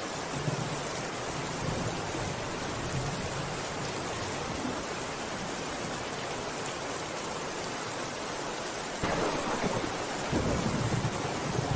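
Steady rain falling, with a low rumble of thunder that swells up about three-quarters of the way through.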